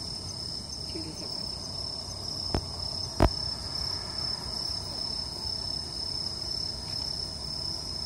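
Steady night-time insect chorus, a continuous high-pitched chirring. Two sharp clicks sound about two and a half and three seconds in, the second louder.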